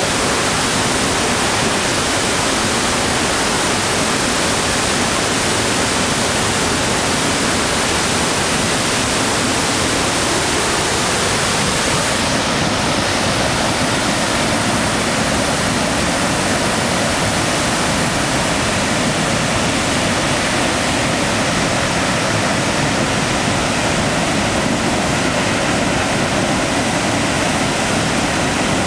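A large waterfall on the Pigeon River, with well over 100 feet of drop, rushing as a steady, loud wash of falling water and spray.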